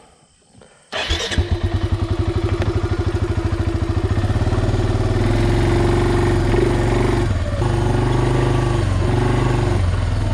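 Suzuki KingQuad 400 ASI ATV's single-cylinder four-stroke engine starting up about a second in, then running steadily at idle with a fast, even pulse.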